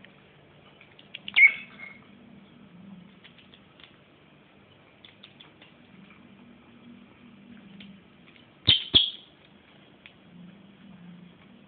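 Rosy-faced lovebird giving short, shrill chirps: one loud call about a second in and two in quick succession near the end. Faint scattered light clicks come in between.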